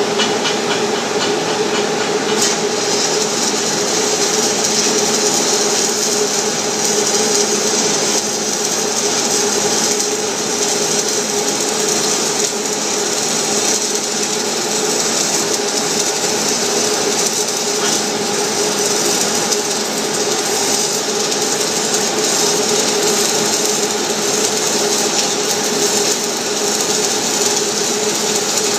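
Stick welding arc burning a 6010 mild steel rod: steady crackling and hissing, with a steady hum underneath.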